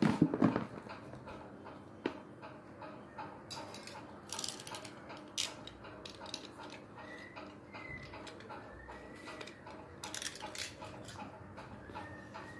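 Hands handling a cardboard smartphone box on a wooden table: a few knocks at the start and a sharp click, then scattered short scrapes and rustles as the box's seal stickers are worked at with a thin tool.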